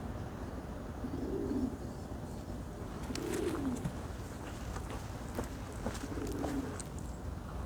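A turkey dust-bathing gives three low, soft, coo-like calls, each under a second, spaced a few seconds apart. From about halfway on come light, scattered scratchy ticks.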